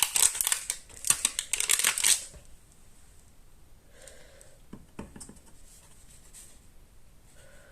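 Paper and card crafting materials handled on a work table: a dense crinkling rustle for about two seconds, then only a few soft clicks and taps.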